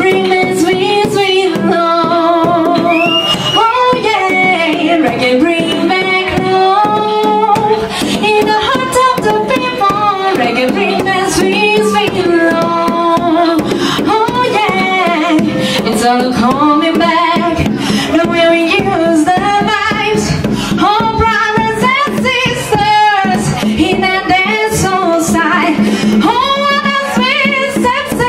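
Female vocalist singing live into a microphone with a wavering, melodic line, over a reggae backing track with a steady bass line and drums played through a sound system.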